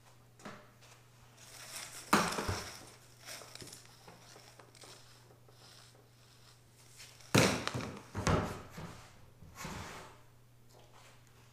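A plastic bucket and vacuum hose being handled on a wooden workbench: a few hollow thunks and knocks, the loudest about two seconds in and again about seven seconds in, with scraping and rustling between. A faint steady low hum runs underneath.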